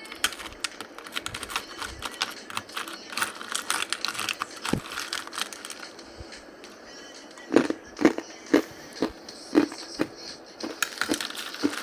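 Hard ice being bitten and chewed close to the microphone: a run of fast crackling crunches, then about six loud, sharp crunches roughly half a second apart, then more crackling near the end.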